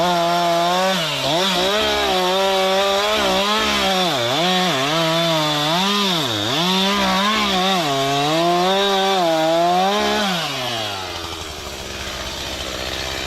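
Stihl two-stroke chainsaw at full throttle cutting into wood, its engine pitch dipping repeatedly as the chain bogs in the cut, then dropping back to idle about ten and a half seconds in.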